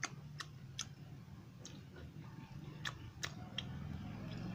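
Mouth sounds of a person chewing food: irregular sharp smacks and clicks, some in quick succession and others a second or more apart, over a faint steady low hum.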